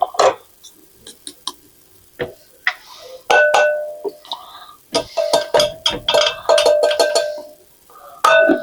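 Spoon clinking and scraping against an old aluminum measuring cup while scooping cornstarch, the cup ringing with a clear metallic tone. A quick run of clinks comes about halfway through.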